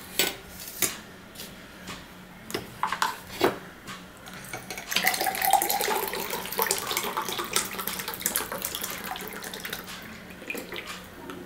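Stainless steel dishes knocking on a table as they are set down, several sharp clinks in the first few seconds. Then water pouring from a plastic bottle into a drinking glass from about five seconds in, a continuous splashing rush that tapers off near the end.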